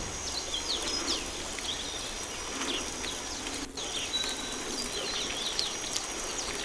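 Garden hose spray nozzle showering water onto soil and straw mulch in plastic containers as artificial rain: a steady hiss and patter of spray. Birds chirp repeatedly throughout.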